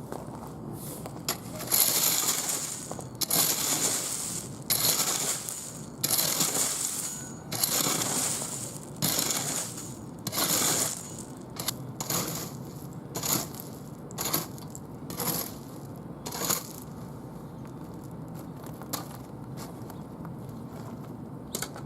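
Gravel and small rocks being scraped and shifted with a garden tool in repeated strokes, about one a second, stopping well before the end.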